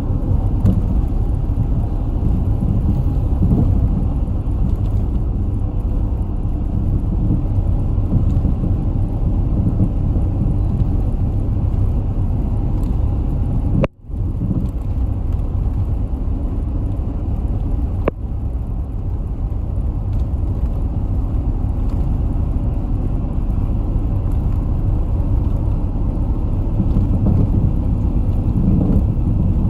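A community bus driving, heard from inside the cabin: a steady rumble of engine and road noise. The sound cuts out for a moment about halfway through.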